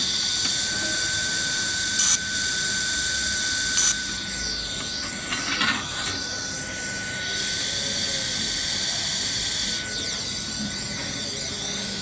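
Handheld fiber laser welder on stainless steel sheet: a steady hiss with a thin steady whine, broken by two short, sharp bursts about two and four seconds in as the laser fires.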